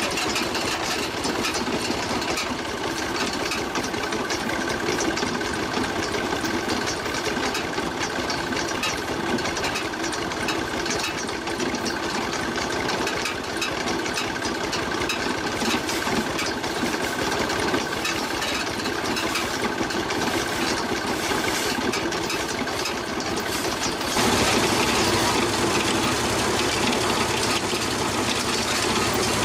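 A motor running steadily with a rapid clatter. About 24 seconds in the sound changes abruptly to a louder, brighter running noise.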